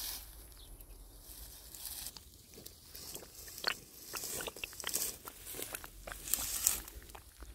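Dry grass and stalks crackling and rustling underfoot as someone walks through a dry field, with irregular crunches and a couple of louder rustles.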